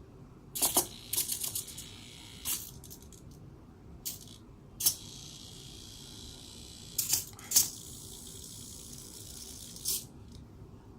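SG90 micro servos on a hexapod robot whirring in short, sharp bursts, about a dozen of them at irregular intervals, over a faint steady high hiss.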